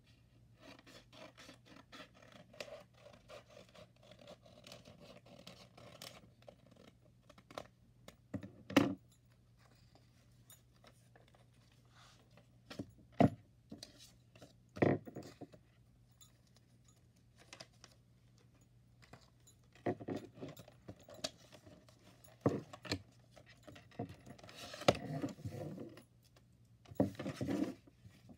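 Paper and card being handled on a desk: rustling, sliding and scraping, with several sharp taps as things are put down. A faint low hum runs underneath.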